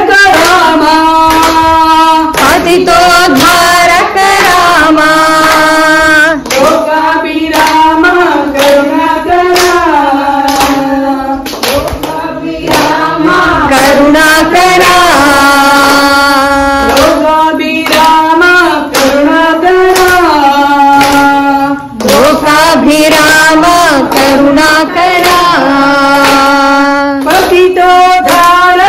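Devotional bhajan singing in long held notes, with hands clapping in time to the song.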